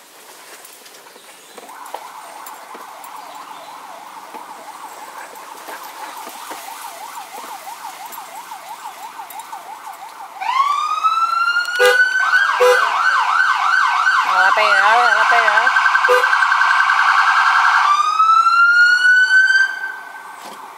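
Electronic vehicle siren. It starts faint and wavering about two seconds in, then about halfway through turns loud with an upward wail sweep, switches to a fast yelp and a quicker warble, and sweeps up into a wail once more before cutting off near the end.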